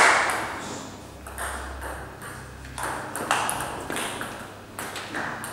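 Table tennis rally: the ball clicking sharply off the bats and the table, a hit about every half second. A louder noise dies away during the first second.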